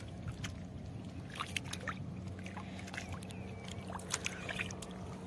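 Squelching footsteps and scattered wet clicks on soft tidal mud, over a steady low engine-like hum.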